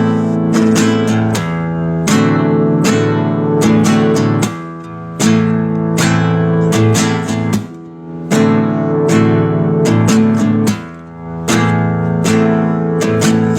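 Acoustic guitar (violão) being strummed and plucked: chords struck in a steady rhythm, each ringing on, with a few short pauses between phrases.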